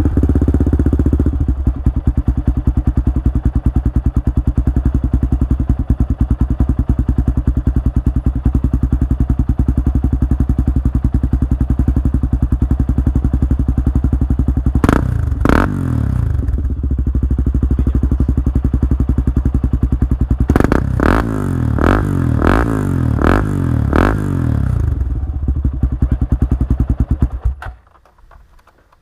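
Honda TRX400EX quad's single-cylinder four-stroke engine through an HMF slip-on exhaust, settling from a faster idle to a steady idle. It gets two quick throttle blips about halfway through, then a rapid run of about six blips a few seconds later, and is switched off near the end.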